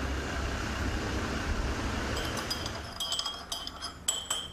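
Glassware clinking: a quick run of light glass-on-glass knocks with a ringing tone, starting about two seconds in, after a low steady rumble.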